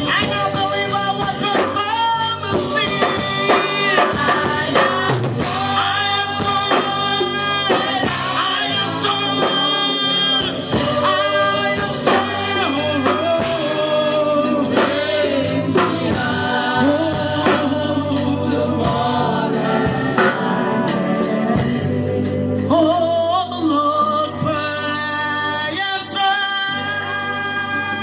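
Gospel choir singing in worship with instrumental accompaniment and a steady bass line.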